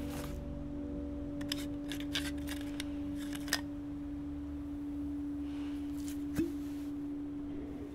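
A steady low drone tone, with small sharp clicks and ticks of screw caps on a plastic bottle and a metal flask being handled and turned: a quick run of clicks about one and a half to three and a half seconds in, and one more click near the end.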